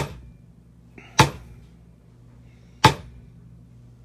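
Leather stamping tool struck with a maul, tooling a decorative border into cased (dampened) leather: four sharp strikes, a little over a second apart, each with a short ring.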